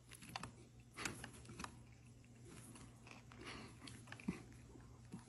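Faint chewing and biting as a person eats a foil-wrapped burrito, with a few scattered short clicks and crackles.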